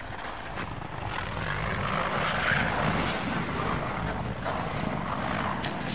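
Toyota Land Cruiser 100 SUV driving slowly over a frozen, rutted dirt track: a steady engine rumble with tyre noise, growing louder about two seconds in.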